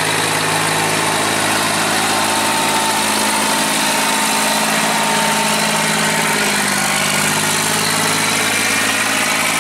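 John Deere 330 combine harvester's engine running steadily as the machine drives past, its pitch dipping slightly about two-thirds of the way through.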